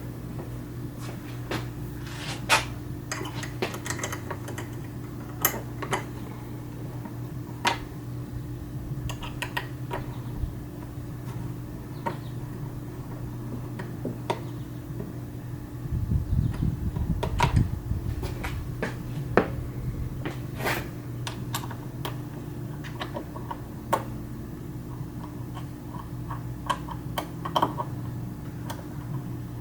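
Scattered metallic clicks and clinks of hand tools and bolts as motorcycle tail panels are unbolted with hex keys and a socket ratchet, over a steady low hum. A brief rustle of handling comes about halfway through.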